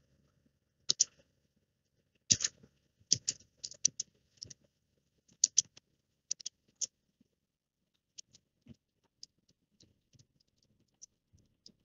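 Typing on a computer keyboard: irregular keystroke clicks, louder and bunched together in the first seven seconds, then sparser and fainter.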